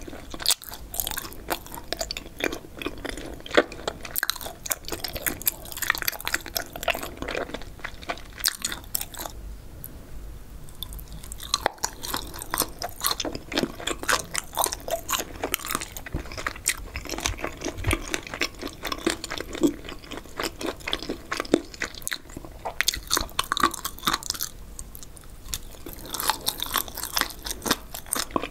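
Close-miked chewing of spicy boneless chicken feet, a steady run of crunchy, chewy clicks and wet mouth sounds. It briefly eases off twice, about ten seconds in and again near the end.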